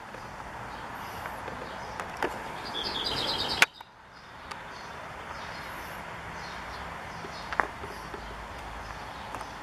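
Birds calling over a steady outdoor background hiss: a fast run of chirps about three seconds in and thin high calls now and then. A sharp click just past the middle is followed by a moment's drop in level.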